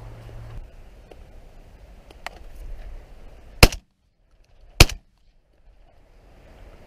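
Two 12-gauge shotgun shots, a little over a second apart, about three and a half seconds in.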